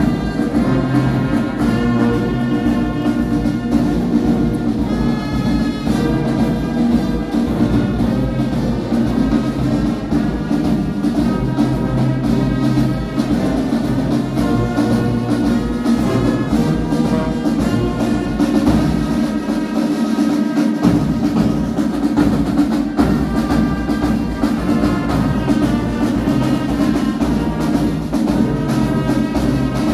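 Church brass band playing with drums: horns holding sustained chords over a steady beat, the low bass notes dropping out briefly about two-thirds of the way through.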